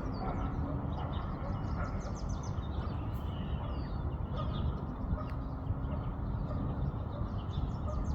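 Helicopter rotor drone, a steady low rumble, with a songbird's rapid high trills over it about two seconds in and again near the end.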